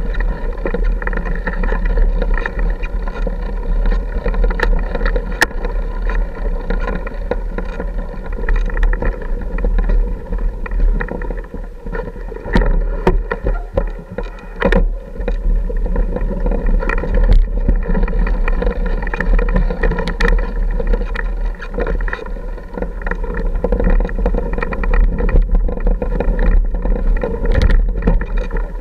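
Off-road motorcycle engine running at a low, steady pace on a rough rocky trail, its note dipping briefly about halfway through, with scattered knocks and clatter from the bike jolting over rocks.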